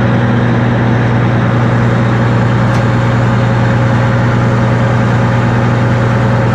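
Diesel engine of a Reichdrill T-650 W water well drilling rig running steadily at a constant speed, a loud, even low drone.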